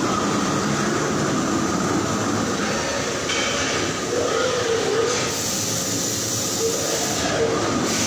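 Steady machinery noise with a constant hiss and faint wavering tones.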